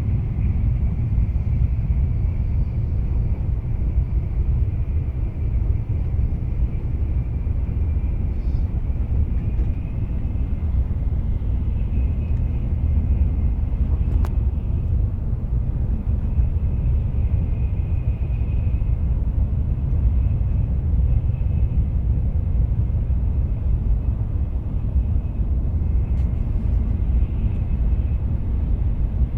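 Shinkansen bullet train running steadily at speed, heard from inside the car: a constant low rumble with a faint high whine above it, and a single sharp click about halfway through.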